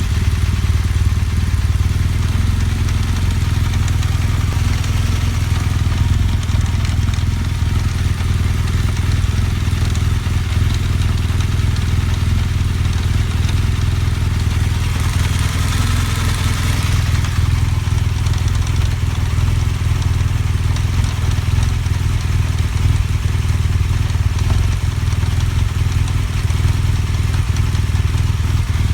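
BMW GS Adventure motorcycle engine running steadily, making a strange noise that the owner cannot place. A hissing, noisy patch swells and fades about halfway through.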